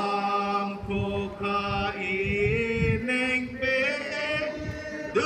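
Chant-like singing with long held notes that slide from one pitch to the next.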